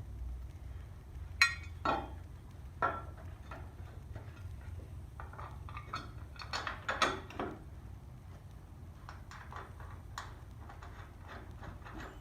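Steel parts and bolts clinking and knocking as a leaf spring hanger is handled and fitted against a truck frame: a few sharp metallic clinks, with a cluster of them in the middle, over a steady low hum.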